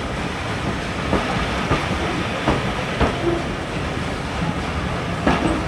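A train running on the heritage line: a steady rumble with repeated short clicks as its wheels pass over rail joints.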